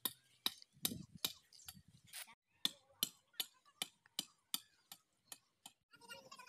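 Sharp, evenly spaced taps or clicks, about two and a half a second.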